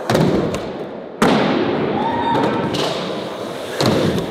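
Skateboard hitting the ground in three sharp thuds: one right at the start, the loudest a little over a second in, and another near the end. Each trails off with a brief ring.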